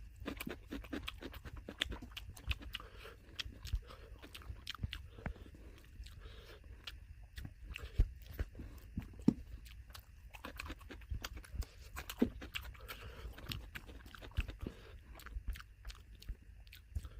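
Close-up eating and chewing sounds: wet, smacking chews of dal and rice with sharper crunches, likely of raw salad, and small clicks throughout.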